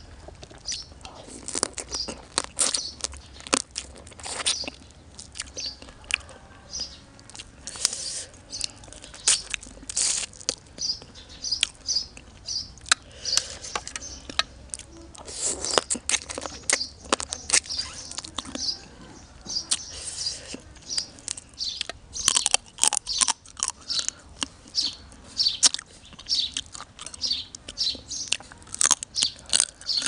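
Close-up eating sounds of blue swimmer crab legs being bitten, cracked and sucked, with many sharp irregular cracks of shell and wet chewing.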